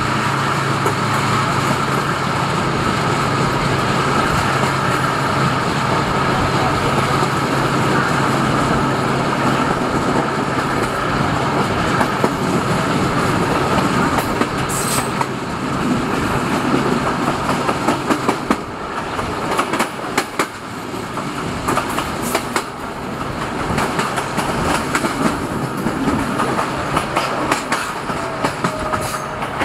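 Diesel-hydraulic passenger train running along the track, heard from an open window: repeated rail-joint clickety-clack over a steady low engine hum. The hum drops away about two-thirds of the way through, while the wheel clatter carries on.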